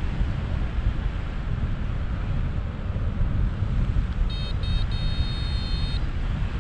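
Wind rushing over the microphone of a paraglider in flight, a steady low rumble. About four seconds in, an electronic instrument in the cockpit beeps twice briefly and then gives a longer high tone lasting about a second.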